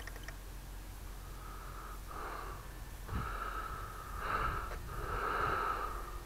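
A person breathing close to the microphone: four noisy, hissing breaths, each under a second long, starting about a second in.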